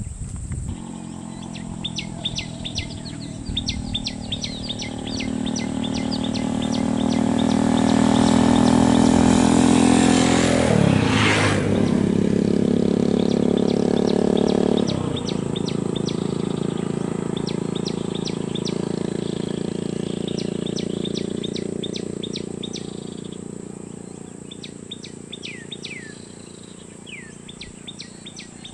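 A motor vehicle drives past close by. Its engine grows louder over about ten seconds, drops in pitch as it passes about eleven seconds in, and fades away by about twenty-four seconds in. Birds chirp in quick runs of short high notes throughout.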